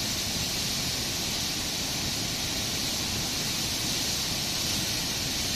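Muddy river in flood surging fast: a steady rushing roar of floodwater with a low rumble underneath, constant in level.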